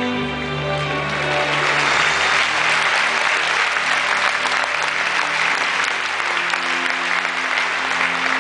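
Large audience applauding, the clapping swelling in about a second in and holding steady, over show music that keeps playing beneath it.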